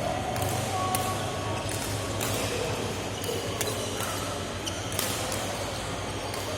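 Indoor court game in play: scattered sharp knocks of ball or racket play and brief sneaker squeaks over a steady low hall hum.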